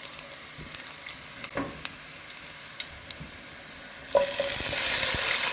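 Chopped ginger and garlic frying in hot oil in a pot: a light sizzle with scattered clicks of the stirring spoon, which jumps suddenly to a loud, full sizzle about four seconds in.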